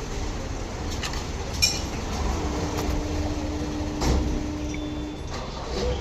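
Car engine with a cylinder 3 misfire (code P0303) from a faulty ignition coil, idling with a low rumble. A sharp click comes about one and a half seconds in, a steady hum sits over it from about two and a half to five seconds, and a knock comes near four seconds.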